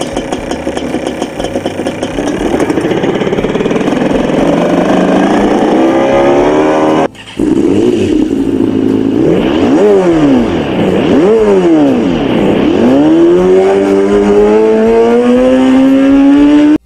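Artificial petrol-motorcycle engine sounds from the Revolt RV400 electric motorcycle's selectable sound feature. The 'Rage' preset revs up steadily. After a brief cut about seven seconds in, the 'Rebel' preset blips the throttle three times and then revs up steadily.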